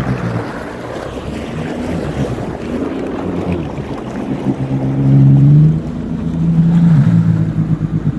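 Jet ski engine running at low speed as it circles, with wind buffeting the microphone and water noise; the engine note rises and gets louder about five seconds in, then eases back near the end.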